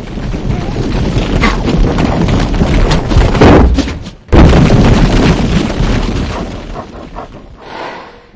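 Cartoon sound effect of a large boulder tumbling down a slope: a heavy rumbling that builds for about four seconds, breaks off for an instant, comes back with a loud heavy impact, then dies away.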